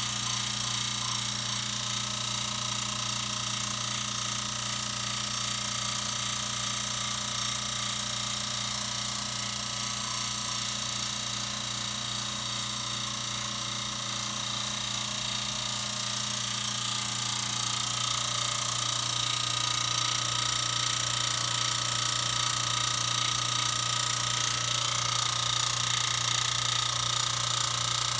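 Ariston Genus HE gas boiler running with a steady high whistle over a low mechanical hum, growing a little louder about two-thirds of the way through.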